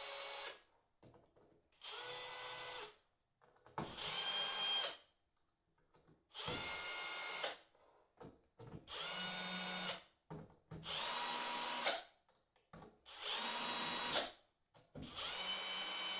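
Electric drill-driver driving M4×12 screws into the terminal blocks of a battery case front panel. It runs in short spurts of about a second, seven times plus the end of one at the start, each with a brief rising whine as the motor spins up.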